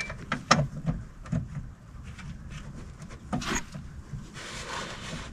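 A few sharp clicks and light rubbing from plastic parts being handled and fitted into place in a car's headlight housing, with a louder cluster of clicks about three and a half seconds in.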